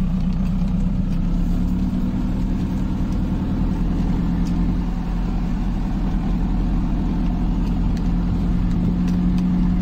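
Mahindra jeep's engine running at a steady, even drone, heard from inside the cab as it drives along a grass track.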